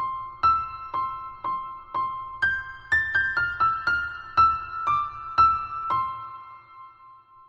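Background music: a simple, gentle piano-like melody of single notes, about two a second, ending with a last note about six seconds in that rings out and fades.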